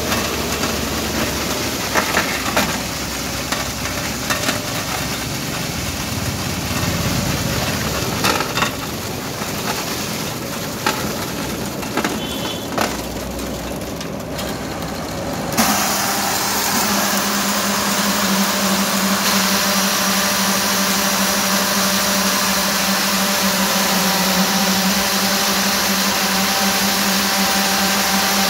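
Concrete paving machine's electric motors and needle vibrators working fresh concrete. For the first half there is an uneven rumble with scattered knocks and clatter. About halfway it changes suddenly to a steady hum that holds on.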